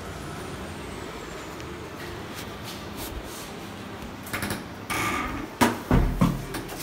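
A door being opened and let shut: after a few seconds of steady background hiss, a run of clicks and knocks from the latch and door begins about four seconds in, loudest shortly before the end.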